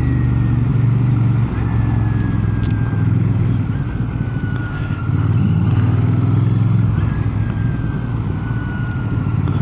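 Royal Enfield Bear 650's 648 cc parallel-twin engine running under way as the bike filters through slow traffic. The engine note eases off about a second and a half in and picks up again around five seconds.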